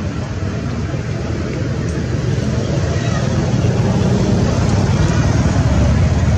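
Steady low rumbling noise with a hiss above it, slowly growing louder.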